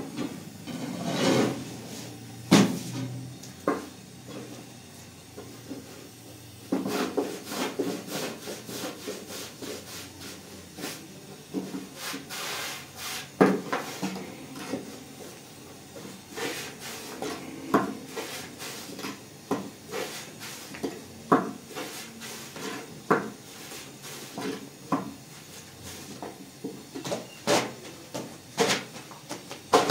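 Irregular knocks and rubbing of objects being handled and scraped, with a few sharper knocks standing out.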